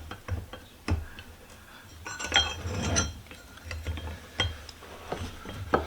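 Metal-on-metal clinks and taps from hand tools working on the parts of a small cast-iron bench vise, with a cluster of ringing clinks about two to three seconds in.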